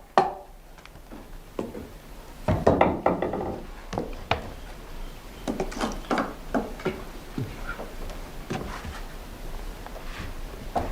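Irregular wooden knocks and clicks, wood striking wood, with a louder, longer sound about two and a half seconds in.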